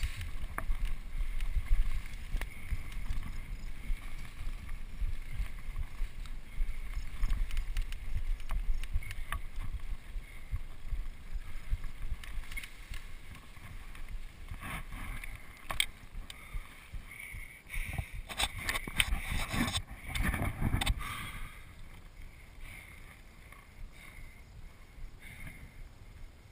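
Mountain bike riding over a bumpy grass single track: a low rumble of jolts and wind on the microphone, with rattling and tall grass brushing against the bike through a busier stretch. The noise drops off for the last few seconds as the bike comes to a stop.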